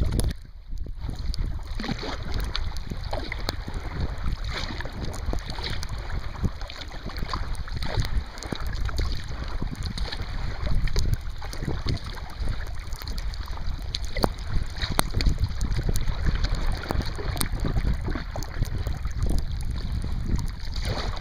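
Wind rumbling on the microphone over water splashing and lapping around a sea kayak as it is paddled through small choppy waves.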